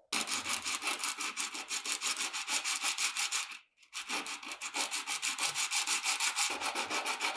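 Rapid back-and-forth abrasive rubbing strokes, about five or six a second, as in hand sanding or scrubbing a surface during restoration. There is a brief break a little under four seconds in.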